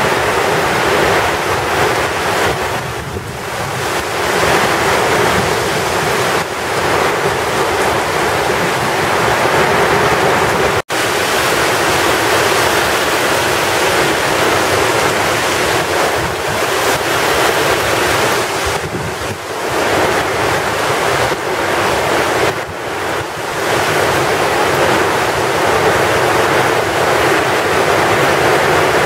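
Heavy tropical-storm rain pouring down in gusting wind: a loud, steady rush that swells and dips with the gusts. It cuts out for an instant about eleven seconds in, where one clip is spliced to the next.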